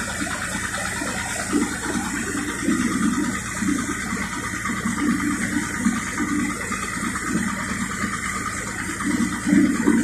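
Water rushing and splashing along the hull of a moving excursion boat, a steady rushing wash with small irregular surges, over a low steady drone from the boat's engine.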